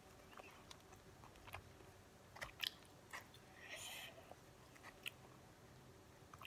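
Faint chewing, with small clicks and crinkles of a paper food wrapper being handled. A short paper rustle comes about four seconds in.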